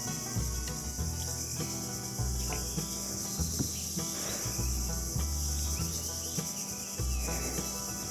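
Steady, high-pitched buzzing of insects in the mangrove, unbroken throughout.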